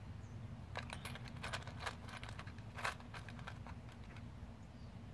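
A scatter of small sharp clicks and taps from hand tools and wire connectors being worked during air-conditioner relay rewiring, over a low steady hum.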